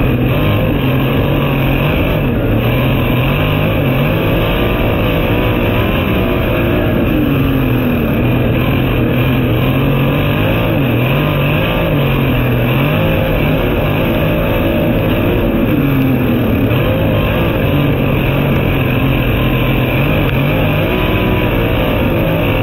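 Sprint car's V8 engine, heard from inside the cockpit, running at low speed with its pitch rising and falling gently and repeatedly as the throttle is worked, under a steady rush of wind and noise.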